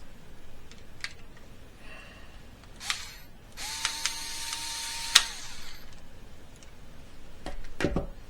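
A small power screwdriver runs for about a second and a half in the middle, between scattered clicks and knocks of plastic parts being handled.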